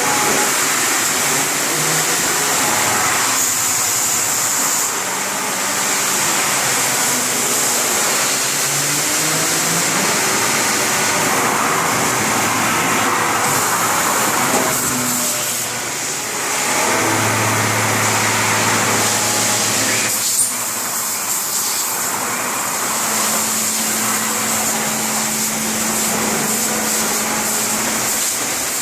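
CNC machine running: a steady whirring spindle noise with a high whine, over motor tones that jump from one pitch to another every few seconds as the axes move at different speeds.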